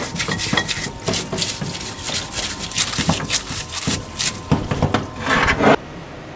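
A stiff brush scrubbing a motorcycle's bank of four carburettors in a parts-washer tub of solvent: quick, irregular scratchy strokes that stop abruptly near the end.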